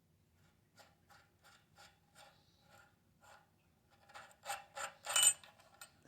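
A threaded steel sprocket being unscrewed by hand from a 1970s SunTour Perfect freewheel, metal scraping and clicking against metal in short, evenly spaced strokes. The strokes grow louder near the end, with a ringing metallic clink as the sprocket comes free.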